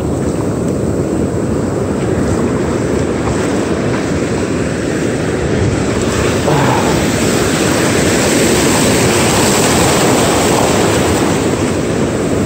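Wind rumbling on the microphone over shallow surf washing in across sand, steady, a little louder from about halfway.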